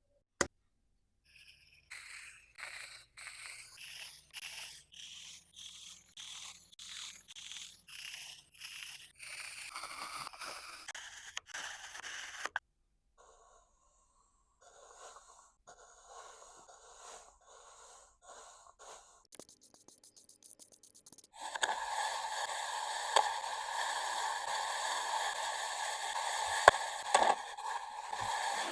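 Kinetic sand being cut with a tool: a run of slicing strokes, about two a second, then after a short pause softer, more scattered cuts. From about two-thirds of the way in there is a continuous gritty scraping through the sand.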